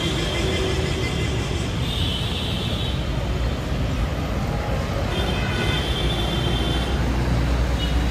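Road traffic on a busy city street: a steady hum of passing cars and buses, with the low rumble growing stronger in the second half.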